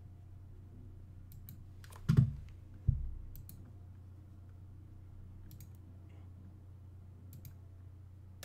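Computer mouse clicking, single clicks and pairs scattered across a few seconds, each one marking a column being counted on a drawing in takeoff software. Two duller, louder thumps come about two and three seconds in, over a faint steady low hum.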